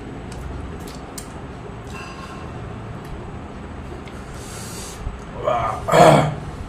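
A man eating chicken curry and rice: faint eating and mouth sounds with a few small clicks, then a short vocal sound about five and a half seconds in, which is the loudest part.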